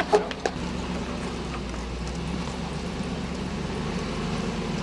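Hummer H2's V8 engine running steadily at low revs as the truck crawls up a sandstone ledge, with a few knocks in the first half second.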